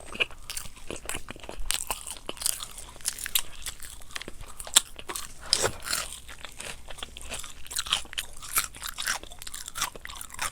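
Close-up crunching and chewing of crispy fried chicken: a run of irregular sharp crackles from bites into the crisp coating.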